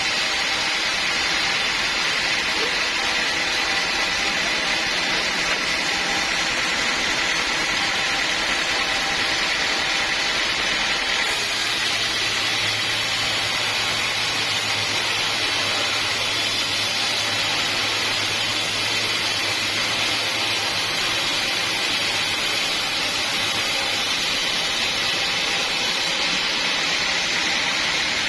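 Sawmill machinery running steadily, a constant noisy drone with a high whine over it; a low hum comes in about eleven seconds in and drops out a couple of seconds before the end.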